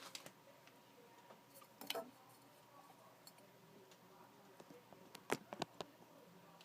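Quiet handling noise with a few light clicks and taps from plastic coin airtights: one about two seconds in and a quick cluster near the end.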